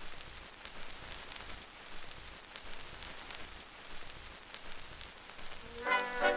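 Crackle and hiss of an old gramophone record's surface noise, with many scattered clicks. Near the end a jazz orchestra recording starts playing on the same record.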